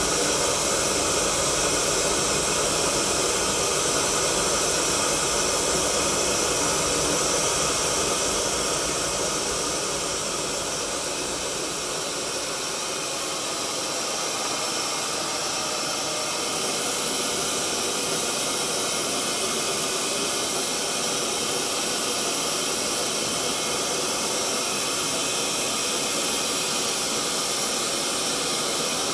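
Gas burners firing a pottery kiln, burning with a steady rushing noise of flame and gas. The noise eases a little about ten seconds in, then holds steady.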